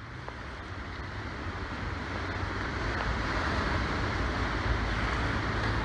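Floodwater rushing over a stepped concrete dam spillway and churning below it, a steady roar that grows louder over the first couple of seconds, with a low steady hum underneath.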